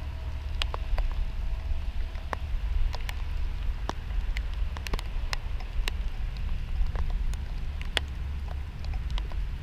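Steady rain, with scattered raindrops ticking sharply and irregularly close by over a steady low rumble.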